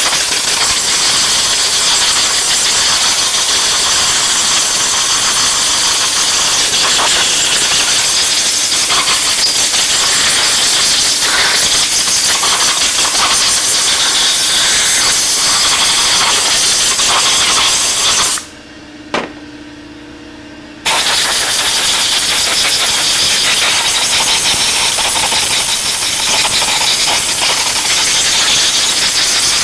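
Compressed-air blow gun hissing steadily as it blows freshly solvent-cleaned small-engine parts dry. About eighteen seconds in the air stops for roughly two seconds, then starts again.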